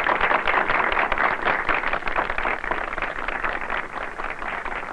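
Crowd applauding, the clapping slowly dying away.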